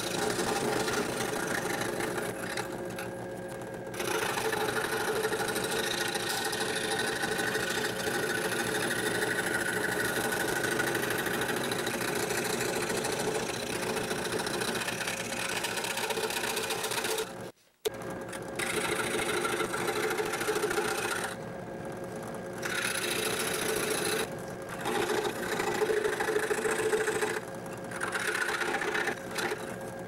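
Craftsman scroll saw running, its reciprocating blade cutting a thin piece of wood, a steady buzzing whose level dips now and then as the cut goes on. It breaks off briefly just past halfway, then carries on.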